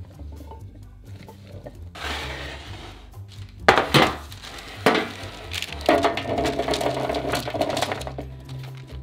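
A metal baking sheet is set down on a wooden counter with two sharp knocks. Then chopped root vegetables are tipped from a glass bowl and rattle and slide onto the parchment-lined sheet for a couple of seconds.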